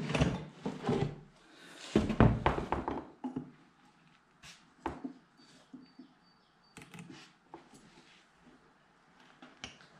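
Metal engine parts handled on a workbench: a piston on its connecting rod picked up and set against an outside micrometer, with a burst of clunks and clatter in the first three seconds, then scattered light clicks and taps as the micrometer is fitted and adjusted.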